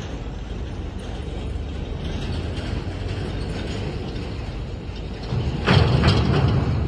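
Sinotruk Howo 6x4 dump truck's diesel engine running at low speed as the truck creeps forward with its tipper body raised. About five seconds in there is a louder rumble with a few rattling metal clunks.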